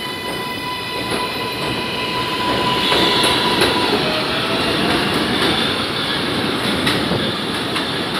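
R188 subway train pulling out of the station: its traction motors give a steady multi-tone whine, which cuts off about four seconds in as the last car passes, while a lower tone rises. The wheels rumble throughout, with sharp clacks over the rail joints.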